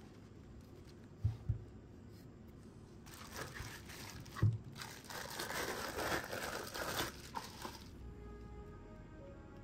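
Plastic packaging bags crinkling and rustling as parts are pulled out of them, with a few soft knocks first. Background music comes in near the end.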